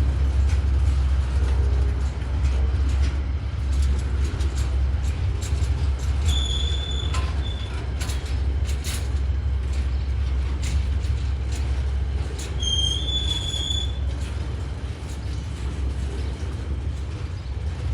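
Train running with a steady low rumble and scattered clicks of wheels over the rails. A high wheel squeal comes twice, briefly about six seconds in and again for over a second near thirteen seconds.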